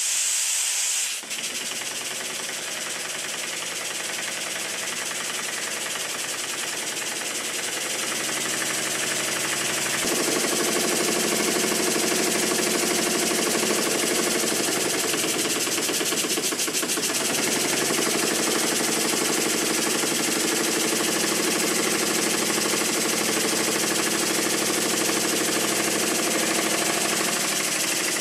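Antique model steam engine (c. 1896) running on compressed air, a rapid train of exhaust beats over a steady hiss of air. It speeds up and grows louder about eight to ten seconds in. This is its first run on a new crankshaft, with the bearings still deliberately left slack.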